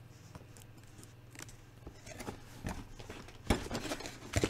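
Cardboard toy-set box being handled and opened, with scattered light clicks and rustles. Near the end come two sharper knocks.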